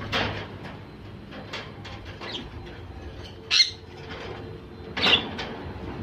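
A sun conure gives a few short, high squawks while being held and turned over in the hand; the two loudest come about three and a half and five seconds in.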